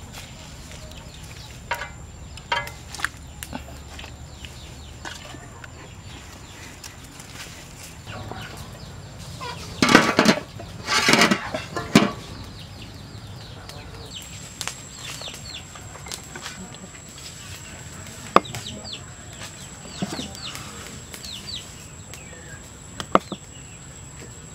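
Chickens clucking around an outdoor kitchen, loudest in a run of calls about ten seconds in. A few sharp knocks later on come from a knife cutting tomatoes on a wooden chopping block.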